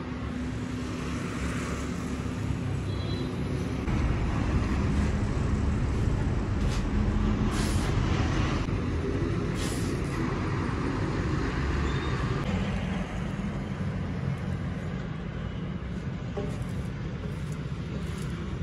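Steady vehicle engine and road noise with a continuous hiss, broken by two short, sharp hisses about eight and ten seconds in.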